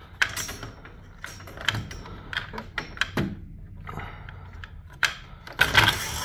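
Metal drive chain and sprocket of a Stanley garage door opener being worked loose by hand: irregular clicks and clanks of the tight chain on the sprocket, with louder knocks near the end.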